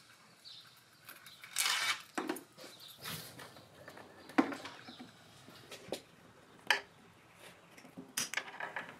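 Scattered clicks, knocks and a brief rustle of hose fittings and the coolant vacuum refill kit's cap adapter being disconnected and handled, with a quick run of clicks near the end.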